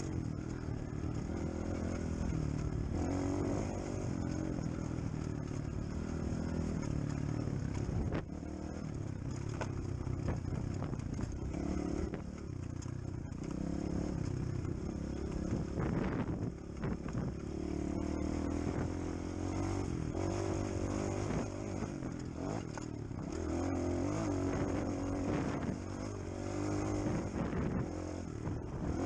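Engine of a 250 cc dirt bike being ridden along a rough, rocky track, its pitch rising and falling with the throttle, with brief dips where the throttle is rolled off, heard from the rider's helmet.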